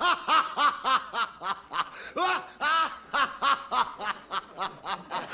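People laughing heartily in quick repeated 'ha' bursts, about four a second.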